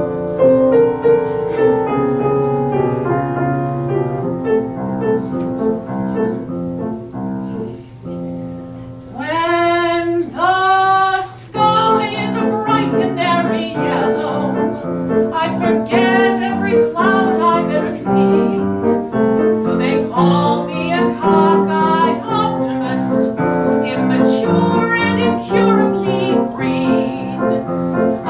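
Grand piano plays an introduction, then a woman's solo singing voice comes in about nine seconds in and carries on with piano accompaniment.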